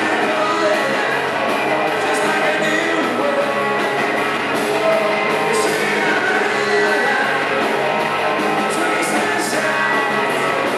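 Rock band playing with guitars and drums, with cymbal hits throughout.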